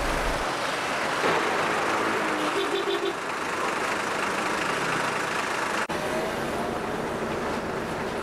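Road traffic with buses: a steady hiss of engines and tyres, with a brief tone about three seconds in. The sound drops out for a moment about six seconds in.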